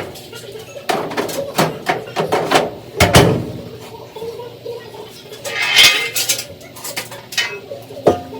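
Metal dryer panels and parts being handled and fitted back in place: a string of clanks and knocks, with a longer scraping rattle a little before six seconds in.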